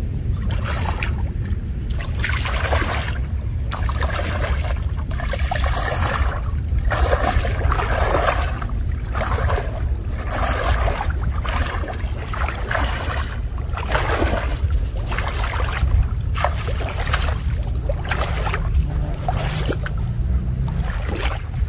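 A person wading through knee-deep muddy water: repeated sloshing splashes of the legs pushing through the water, roughly one per stride, over a steady low rumble.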